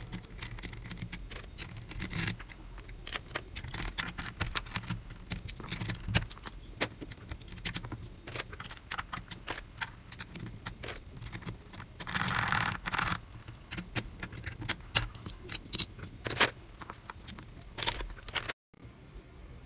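Plastic keycaps on a mechanical keyboard clicking and clacking irregularly, a few sharp clicks a second, with a brief scraping rush about two-thirds of the way through. The sound cuts off abruptly near the end.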